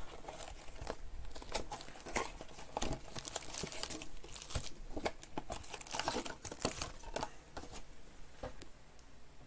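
Plastic wrapping being torn off a sports-card hobby box and the wrapped card packs pulled out and handled, crinkling and rustling irregularly throughout.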